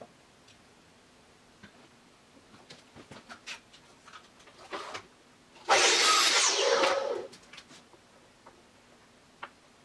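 Hand-tool work on a wooden instrument body: scattered light taps and clicks. About six seconds in comes one loud hissing scrape lasting about a second and a half.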